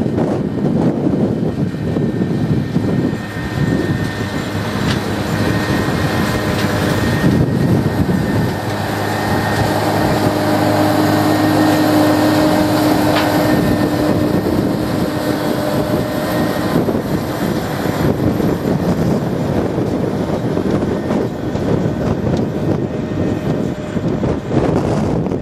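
Deutz-Fahr tractor running steadily under load while it works the soil with a Grimme GR 360 rotary tiller, with wind rushing over the microphone. The engine's hum grows louder and clearer for several seconds in the middle as the tractor passes close.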